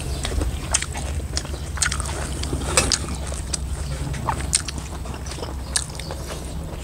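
Close-miked eating: chewing of buffalo meat and rice, with irregular wet smacks and clicks of the mouth, over a steady low hum.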